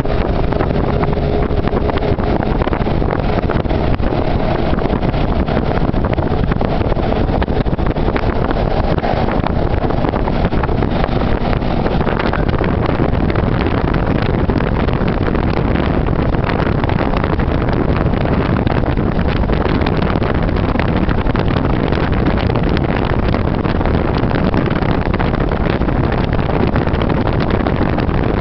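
Steady, loud noise with no distinct tone, strongest in the low range and unchanging throughout.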